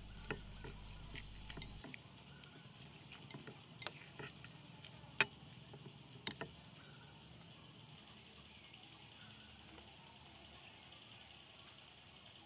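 Wooden chopsticks tapping and scraping against a ceramic bowl while tossing noodles with fresh vegetables, a run of irregular light clicks with a couple of sharper taps around five and six seconds in; the clicks thin out after about eight seconds.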